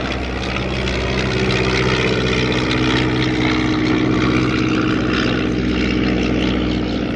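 The Desoutter monoplane's 115 hp Cirrus Hermes II four-cylinder engine and propeller running steadily, a little louder after about a second.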